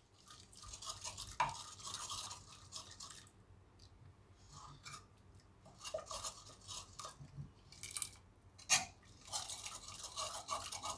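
Metal ladle stirring and lightly mashing soft boiled chana dal in a pressure cooker: wet swishing and squelching in spells, with a few sharp clinks of the ladle against the pot, about a second and a half in and again near eight and nine seconds.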